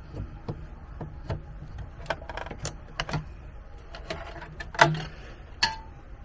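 Irregular light clicks and knocks of a screwdriver and metal parts being handled at an RV electrical distribution panel, with two sharper knocks near the end.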